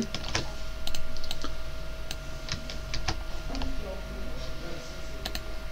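Keystrokes on a computer keyboard: scattered, irregular single clicks over a faint steady hum.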